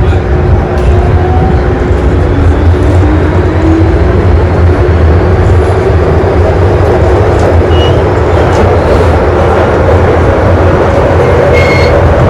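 MTR M-train running, heard from inside the carriage: a loud, steady rumble of wheels and running gear. Over the first few seconds the traction motor whine rises in pitch as the train picks up speed, and two brief high squeaks come about eight and twelve seconds in.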